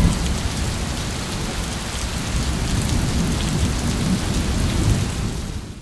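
Steady rushing noise over a low rumble, fading out near the end.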